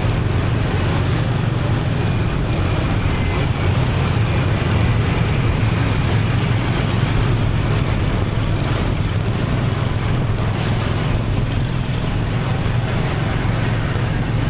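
Riding a motorbike in city traffic: the bike's engine runs steadily with a low hum, under road and traffic noise and wind buffeting the microphone.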